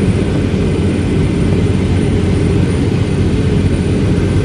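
Strong storm wind in a tornado buffeting the microphone: a loud, steady, deep rumble without breaks.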